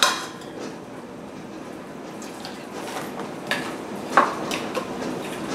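Long metal spoon dipping brine from a stainless steel stockpot and tipping it through a plastic funnel into glass canning jars: a few light clinks and taps, the sharpest about four seconds in, with liquid trickling and dripping between them.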